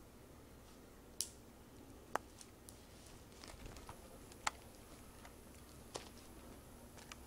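Faint, scattered clicks and light scratches as young fox squirrels clamber over a hand close to the microphone, with about four sharper clicks spread through.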